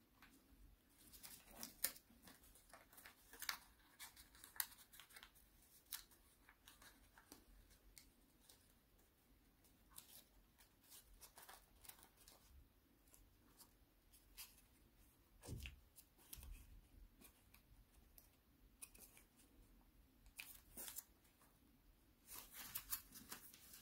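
Faint, irregular crinkling and crackling of a sheet of origami paper being folded and creased by hand.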